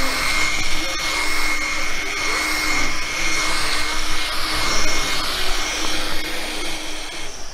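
Electric rotary polisher running steadily with its buffing pad pressed on a painted plastic car bumper: a steady motor whine over the hiss of the pad on the paint, polishing out grime and fine scratches to bring up the gloss. It stops near the end.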